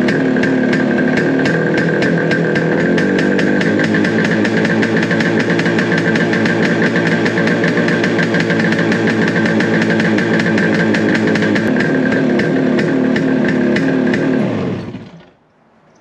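Suzuki T350's two-stroke twin engine idling steadily, then shut off about a second before the end, the sound dying away quickly.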